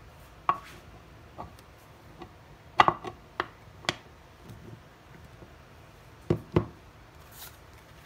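A hard watch box handled on a wooden table: a series of sharp knocks and clacks as its lid is fitted and pressed down, loudest just under three seconds in and twice in quick succession near the end, with a brief paper rustle as the booklet is picked up.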